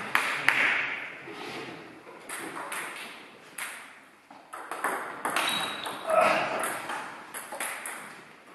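Table tennis ball clicking on bats and table during a rally, a quick string of sharp ticks with hall echo.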